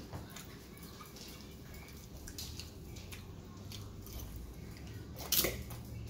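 Close-miked eating: chewing and mouth sounds, with a metal fork scraping and clicking against a ceramic plate of chicken, rice and crisps. One louder sharp click comes about five seconds in.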